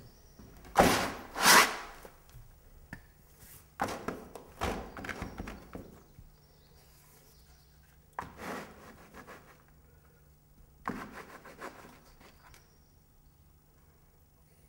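Painting tools dragged and scraped across a canvas in four bouts of rough strokes. The two strokes about a second in are the loudest.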